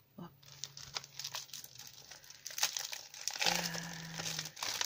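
Clear plastic packet of a clear photopolymer stamp set crinkling and crackling as it is handled, with a brief low hum about three and a half seconds in.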